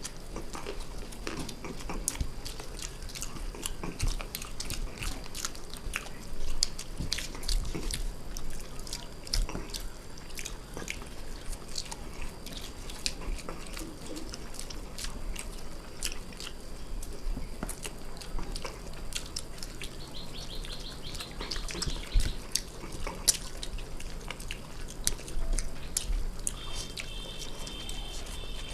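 Close-up chewing and wet mouth noises of people eating chowmein noodles and chicken Manchurian fast, with many scattered small clicks.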